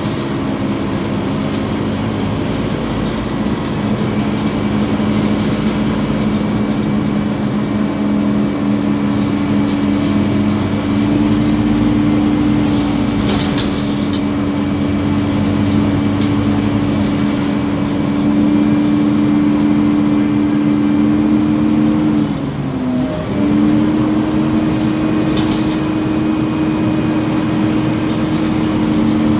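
Scania OmniCity city bus heard from inside the passenger cabin while driving: a steady engine and drivetrain drone. Near three-quarters of the way through the drone dips briefly in pitch and level, then picks up again. A couple of faint clicks sound over it.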